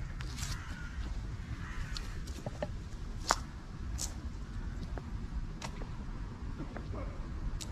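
Outdoor ambience from a handheld camera on the move: a steady low rumble of wind and handling on the microphone, with scattered short, sharp clicks, the loudest about three seconds in.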